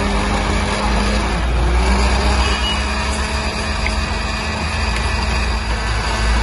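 Electric countertop blender running steadily as it whips lemon juice into a froth. The motor's hum dips briefly in pitch about a second and a half in, then recovers.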